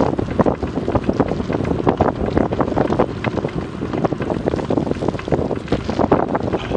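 Wind buffeting an action camera's microphone on a bicycle moving at about 31 km/h: a loud, rough rush that flutters without a break.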